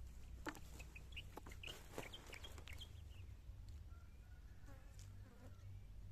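Birds calling faintly: a quick run of short, high chirps in the first three seconds, then a softer wavering call, over a steady low rumble.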